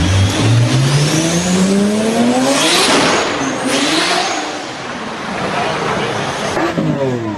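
Car engine revving hard under acceleration, its pitch climbing steadily for about three seconds, swelling into a loud rush, then falling away; a second rev starts near the end.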